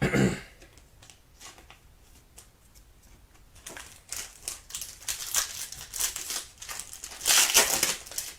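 A knock, then crinkling and tearing from about three and a half seconds in: a foil trading-card pack wrapper being ripped open and handled.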